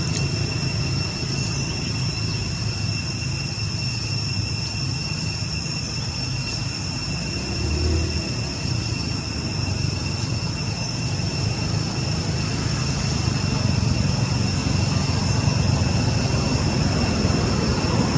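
Steady low rumble of background motor traffic, with a constant high-pitched whine running through it.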